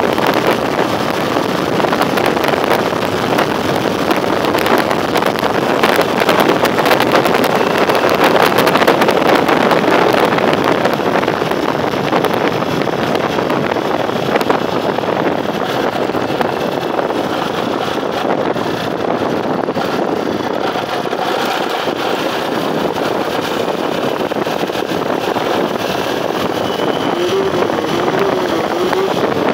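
Motorcycle riding at road speed, a steady rush of wind and road noise over the microphone with the engine running beneath; the rush eases somewhat as the bike slows into town.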